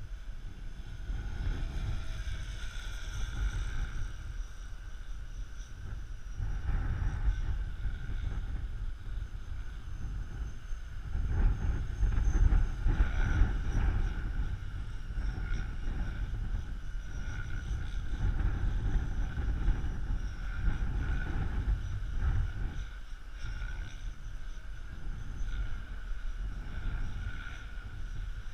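Wind buffeting the microphone in gusts, loudest about halfway through, over the faint steady whine of a small model aircraft's motor flying overhead.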